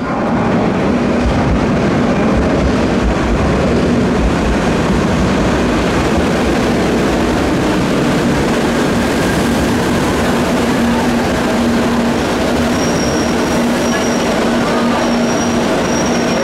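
CAF 2000-series metro train pulling into an underground station: loud steady rumble of wheels on rail with a low hum throughout. A thin, high wheel-and-brake squeal comes in near the end as the train slows for the platform.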